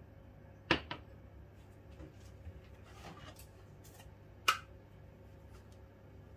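Glass bowls knocking on a glass-ceramic cooktop: a sharp clink with a quick second tap under a second in, and another single sharp clink a few seconds later.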